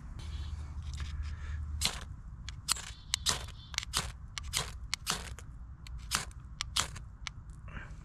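Zippo ferro rod struck again and again with its steel striker, about a dozen quick, sharp scrapes in an uneven rhythm, starting about two seconds in. These are repeated strikes throwing sparks at a wax-coated cedar tinder bundle that has not yet caught.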